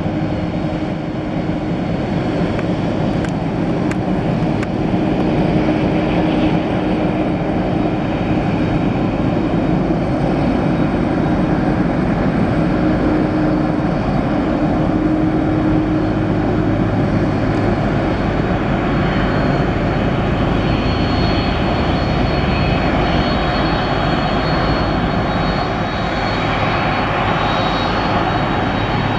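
Boeing 747-400ERF freighter's four jet engines running at low taxi power: a steady, even rush of engine noise. A faint high whine comes in about twenty seconds in.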